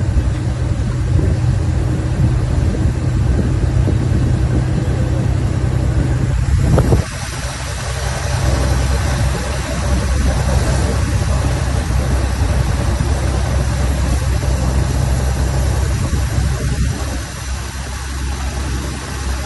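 An engine running steadily with a low hum; about seven seconds in the sound changes abruptly and drops a little in level, then runs on steadily.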